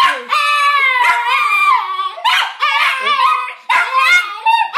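Two small dogs howling and yipping together in excitement, long wavering high-pitched howls overlapping one another, with a few short breaks.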